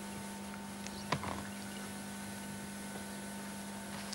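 Steady electrical hum over hiss on an old videotape soundtrack, with one short knock about a second in.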